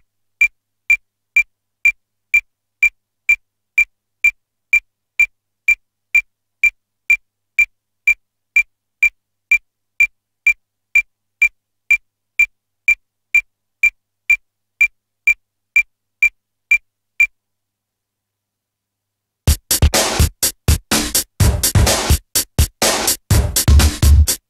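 A steady series of short, high-pitched electronic ticks, about two a second, stops after a while. After a pause of about two seconds, electronic music with a drum-machine beat comes in.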